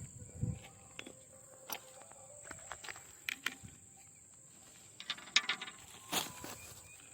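An insect's steady high-pitched drone, with scattered light clicks and knocks over it, a cluster of them a little after five seconds in.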